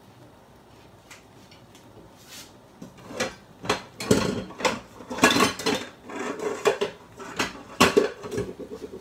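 Dishes and cutlery clattering: a quick run of knocks and clinks as bowls and utensils are handled, starting about three seconds in.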